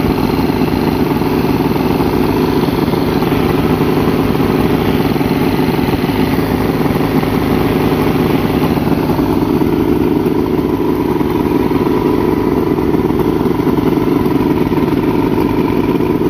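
Mercury V6 two-stroke outboard engine running steadily. Its new stator now gives the ignition coils about 200 volts, curing the weak spark on cylinders 1, 3 and 5.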